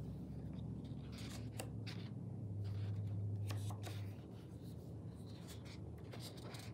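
Pages of a hardcover picture book being turned and handled: soft paper rustles and brushing sounds, a few at a time, over a low background hum.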